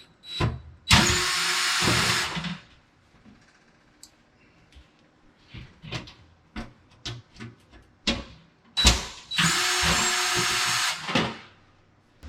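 Cordless drill with a small hex bit backing out the tiny Allen-head screws that hold an oven bake element, run twice in steady bursts of one to two seconds, with short clicks and knocks of the bit and screws being handled in between.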